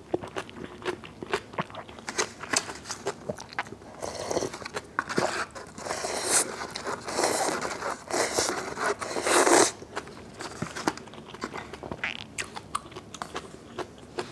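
A person eating close to a lapel microphone. Wet chewing clicks run throughout, with a louder stretch of slurping from about four seconds in to nearly ten seconds, then chewing again.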